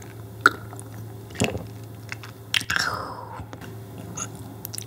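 Close-miked mouth sounds of a shot of rice wine being drunk: a few sharp gulping clicks, then a breathy exhale falling in pitch about two and a half seconds in.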